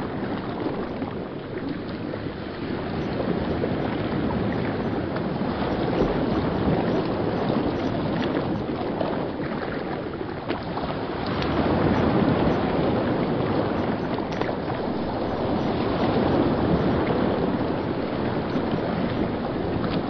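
Rapids of a fast, shallow river rushing over rocks: a steady wash of white water that swells and eases slightly in loudness.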